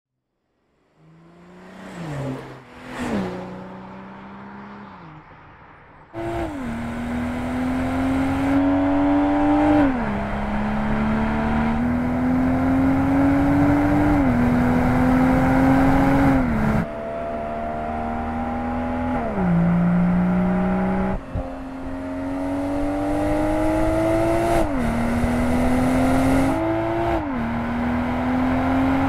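BMW 2 Series Coupé engine: a couple of brief revs at first, then from about six seconds a steady run under acceleration, its pitch climbing slowly and dropping sharply again and again as it shifts up through the gears.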